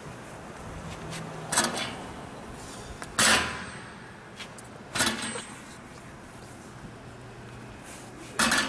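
Empty steel stair-climbing hand truck with tri-wheel star clusters being pulled up stone steps: four clunks with a short metallic ring as the wheel clusters roll over and drop onto each step, unevenly spaced, the second the loudest.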